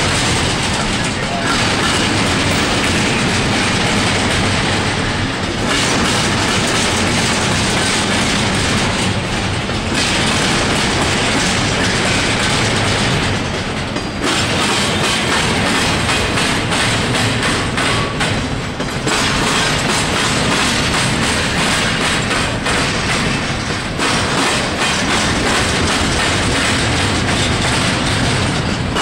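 Freight cars of a long intermodal train rolling past, with a steady rumble and wheels clacking over the rail joints, easing briefly every few seconds.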